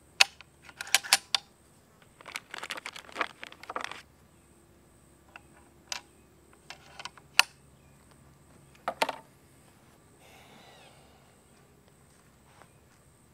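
Series of sharp metallic clicks and short rattles from a big bore PCP air rifle being handled at the breech, cocked and loaded on the bench. No shot is fired.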